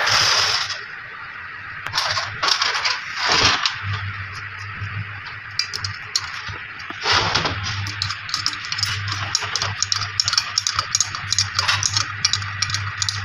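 Light metallic clinks and quick irregular ticking of small metal parts, with a few short louder bursts of noise, over a steady low hum.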